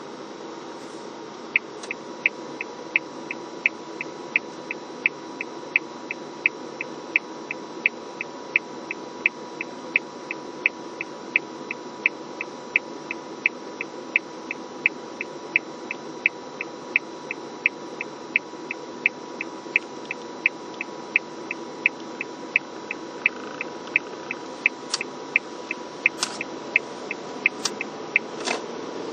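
Car turn-signal indicator ticking steadily inside the cabin, nearly three ticks a second, over the steady hum of the idling car; the ticking starts a moment in and stops near the end as the car makes its turn.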